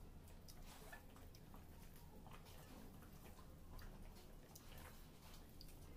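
Near silence with faint, irregular small clicks and ticks of hand-eating: fingers mixing rice on a steel plate.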